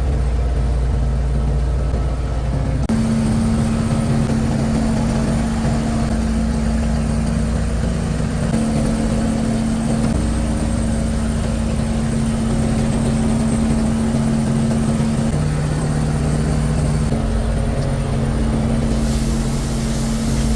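A boat engine running steadily with a low hum.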